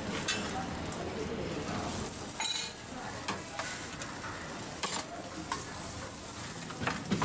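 Dabeli buns sizzling steadily on a hot flat griddle (tawa), with several sharp clicks of metal spoons against steel bowls as chutney is spooned into buns.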